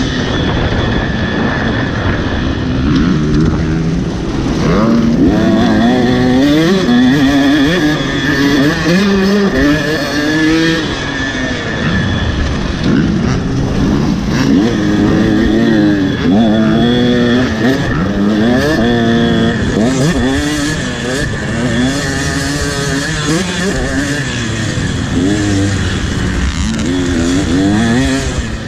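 Motocross dirt bike engine revving hard and easing off again and again, its pitch climbing and dropping every second or two as the rider works the throttle and gears.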